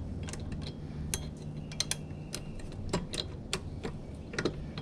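Irregular sharp metallic clicks and taps, about a dozen, from hand tools and hardware (washer, nut, carriage bolt) being fitted back on a mower deck's belt idler, over a low steady hum.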